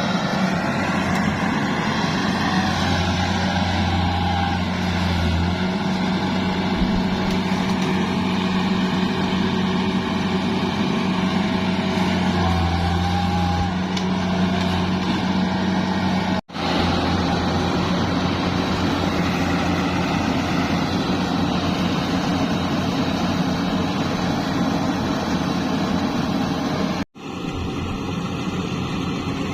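Yanmar AW70V combine harvester running steadily with a constant low hum, its sound cut off for a split second twice, about halfway through and near the end.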